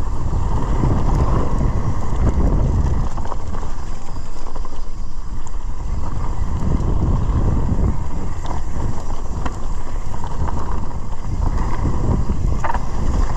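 Mountain bike descending a dirt and gravel trail at speed, with wind buffeting the camera microphone over steady tyre noise. Scattered small clicks and rattles come from the bike as it rolls over bumps.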